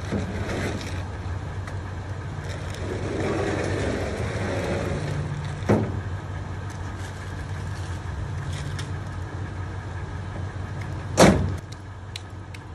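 Pickup truck engine idling steadily, with a knock about halfway through and one loud thump near the end.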